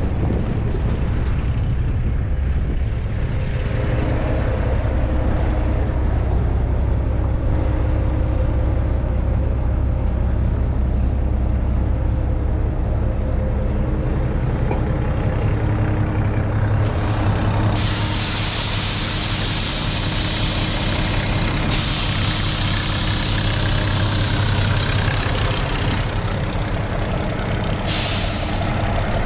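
Kenworth T800 dump truck's diesel engine idling with a steady low hum, and air hissing out of its air system: two long hisses of about four seconds each, back to back, past the middle, and a short burst near the end.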